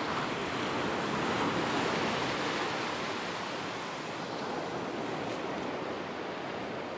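Surf breaking and washing up the beach: a steady rush of waves that swells a little in the first few seconds, then eases.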